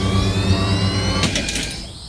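A machine-like whine slowly rising in pitch over a steady low hum, broken by a short sharp burst about a second in, then fading out near the end.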